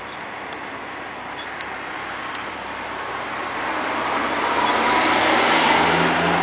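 The robotic picker of an automated vending machine whirs into motion after a few faint clicks. The motor noise swells over a few seconds and settles into a steady low hum as the carriage travels to fetch the chosen bottle.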